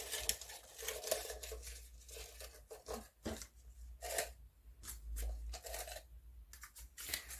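Paper and a thin clear plastic cup rustling and crinkling in short, irregular scrapes as paper cut-out flowers are handled and pushed into the cup.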